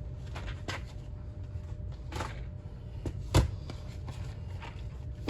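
Handling noises from boxes of ammunition being picked up and set down: a few light knocks and clicks, the loudest about three and a half seconds in, over a steady low hum.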